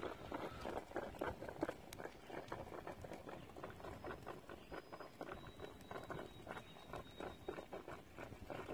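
Water boiling in a stainless steel pot on a KIHD Basic Plus wood-burning stick stove: an irregular patter of small bubbling pops, with the twig fire underneath crackling now and then.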